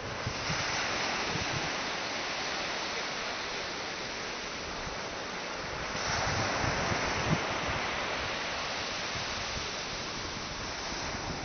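Surf breaking and washing on a sandy beach, mixed with wind buffeting the microphone. The wash swells louder about half a second in and again around six seconds in.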